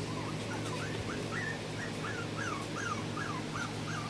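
Brussels Griffon puppy whimpering: a quick string of short, high, rising-and-falling whines, about three a second, starting about half a second in.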